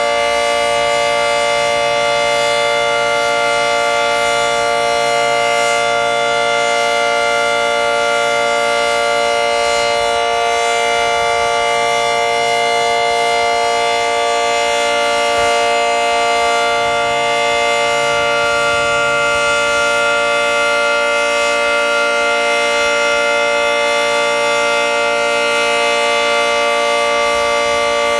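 Federal Signal 2T22 dual-tone outdoor warning siren sounding a loud, steady alert, its two-note chord holding a level pitch with no rise or fall.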